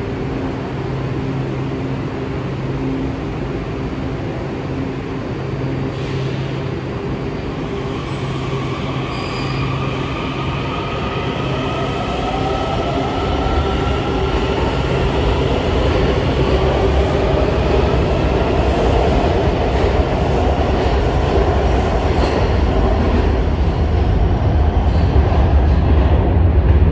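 A 7000-series Metrorail subway train humming steadily at the platform, then pulling away. From about eight seconds in, its propulsion whine rises in pitch as it accelerates, and a deep rumble of wheels on rail builds and grows louder toward the end.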